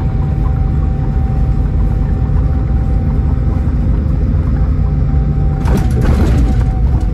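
Scania K440 coach's 13-litre six-cylinder diesel running under way, heard from inside the cabin as a steady low drone with road noise and a constant thin whine. About six seconds in there is a brief clatter of clicks and rattling.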